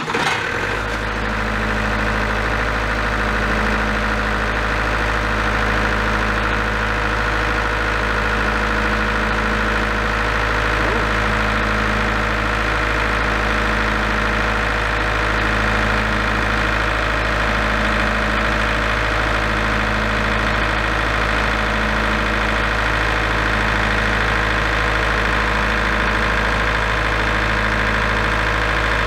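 Large diesel generator set's engine catching at the start and then running steadily at constant speed: a deep, even drone with a slow regular pulse in it. It keeps running well past the ten seconds after which it used to cut out with an error.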